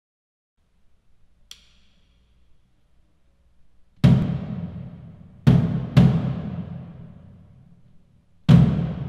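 A percussion ensemble's drums: after a faint low rumble and a single light click, four loud accented drum strokes, the second and third close together, each left to ring and die away.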